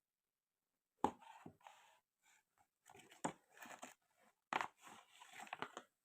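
Small plastic toy pieces and packaging being handled, with sharp clacks and rustling. The loudest clacks come about a second in, about three seconds in, and near the middle of the second half.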